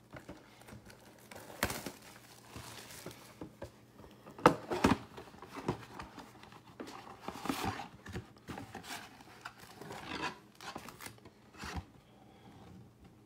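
Cellophane shrink-wrap crinkling and tearing off a Topps Chrome trading-card box, then the cardboard box being opened and emptied, in irregular rustling bursts with a few sharp crackles, the loudest about four and a half seconds in.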